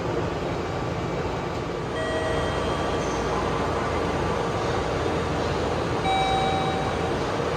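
Steady hum and rush of a standing 415 series electric train at the platform. Two short electronic tones sound, about two seconds in and again about six seconds in.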